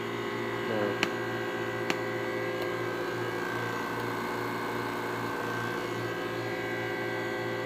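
Steady electrical hum of running equipment with several fixed tones, broken by two light clicks about one and two seconds in.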